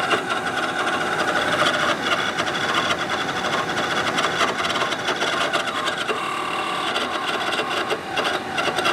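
Attwood RV furnace blower fan motor running, a steady, kind of noisy rough mechanical rattle, which the repairer takes for a bad blower motor rather than the fan rubbing on something.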